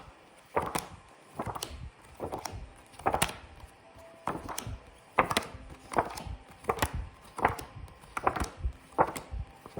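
Phonics flashcards being flipped over quickly one after another, a short papery slap or flick about every three-quarters of a second, around a dozen in all.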